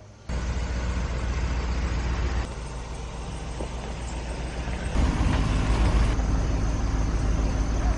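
Pickup truck engine running with a steady low rumble, the level dropping about two and a half seconds in and rising again about five seconds in.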